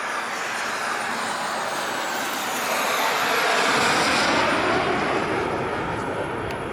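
Turbine of a radio-controlled Skymaster A-4 Skyhawk model jet flying past. The rushing turbine sound swells to its loudest about four seconds in, with a high whistle falling in pitch as it passes, then fades.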